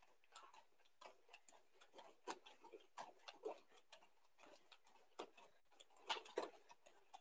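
Faint soft taps of bare feet landing on judo mats, irregularly spaced, as a judoka jumps back and forth over a belt on the floor.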